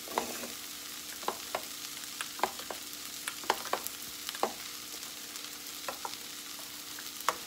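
Metal spoon stirring baked beans in a bowl, clinking against the bowl's side a dozen or so times at an irregular pace. Under it is a faint steady sizzle from onions and green peppers in a skillet.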